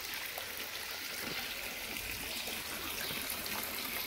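Water trickling steadily into a fish pond, an even running hiss.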